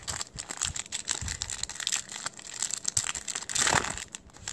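Foil booster-pack wrapper crinkling and tearing as it is ripped open by hand, with a louder rip about three and a half seconds in.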